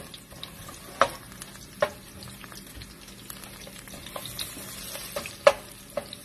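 Chopped garlic sizzling in hot oil in a pan while a wooden spatula stirs it, with a few sharp knocks of the spatula against the pan.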